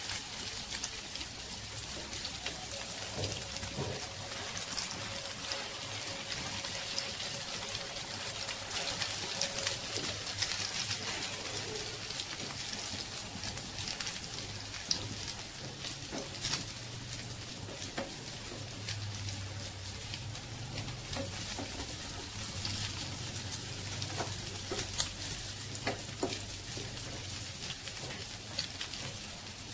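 A patty shallow-frying in oil in a frying pan: a steady sizzling hiss with scattered crackles and a few sharper pops.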